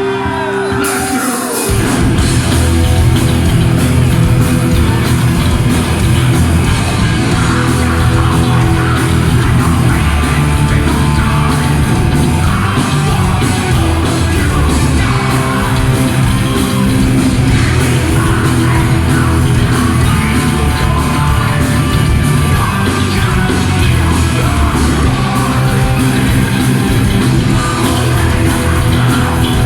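Heavy metal band playing live in a hall: distorted guitars, bass and drums under a sung and shouted vocal. The full band comes in hard about two seconds in, after a thinner opening.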